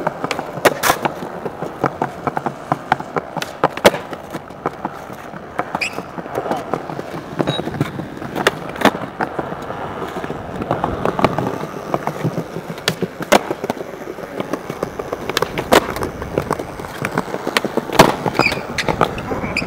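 Skateboard rolling over stone paving slabs, a steady wheel rumble broken by many sharp clacks as the board strikes the ground during flatground tricks.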